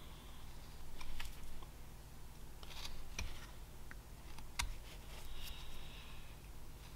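Carving knife making short V cuts in a small basswood figure: a handful of crisp snicks and light scrapes as the blade slices through the wood, the two sharpest about three and four and a half seconds in.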